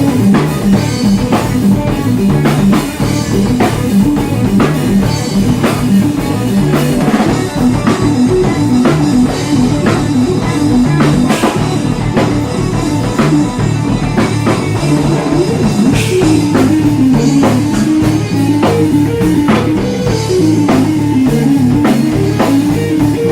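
Instrumental progressive rock/fusion band playing live: electric guitar over a drum kit, with steady drum hits and a moving melodic line throughout.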